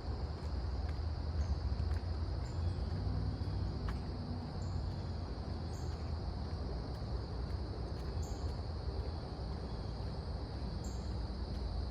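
A steady high-pitched insect chorus of crickets or similar insects, with short high chirps every second or two, over a steady low rumble.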